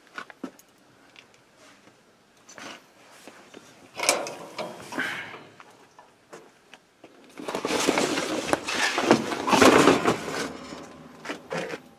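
A duvet and a plastic cover rustling and swishing as they are pulled off a moped. It comes in bursts, with a few light knocks at first, and is loudest and longest in the second half.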